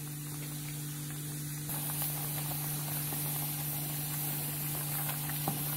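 A pot of papaya tamarind curry simmering on a gas stove, giving a steady hiss over a low steady hum, with faint scrapes of a wooden spatula stirring it. The hiss grows slightly brighter about two seconds in.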